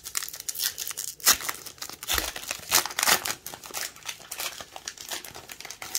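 A trading-card pack wrapper being torn open and crinkled by hand: an irregular run of crackling and rustling.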